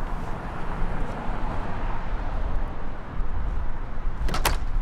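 Passing road traffic: a steady rushing hiss over a low rumble that swells through the middle. About four and a half seconds in come two sharp knocks in quick succession.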